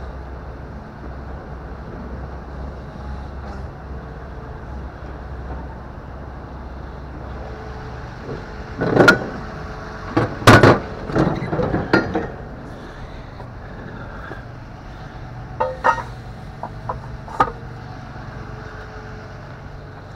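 Tow truck engine idling steadily. A cluster of loud clanks and knocks comes about nine to twelve seconds in, and a few more come around sixteen to seventeen seconds, from the wheel-lift gear being handled.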